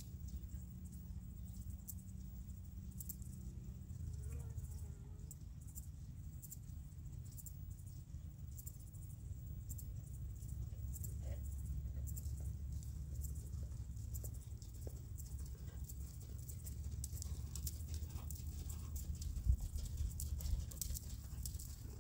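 Soft hoofbeats of a horse trotting on sand arena footing, with a low steady rumble underneath.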